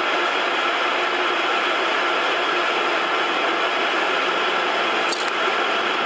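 Steady airliner cabin noise from the running jet engines and air system, an even rushing sound with a faint steady tone in it, and one brief click about five seconds in.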